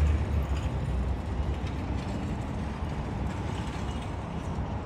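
Steady low rumble of outdoor city ambience, with traffic noise and no single clear event.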